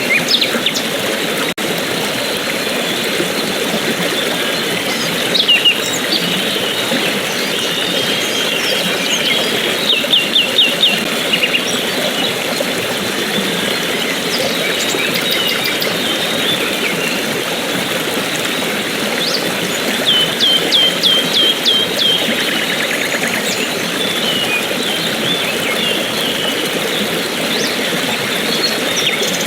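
Steady rush of running water from a waterfall or river, with birds chirping over it. Two quick runs of about six sharp repeated notes come around ten and twenty seconds in.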